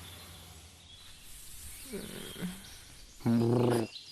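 Stomach-growl sound effect voiced as an animal-like growl: a short wavering gurgle about two seconds in, then a loud, low, steady growl for under a second near the end.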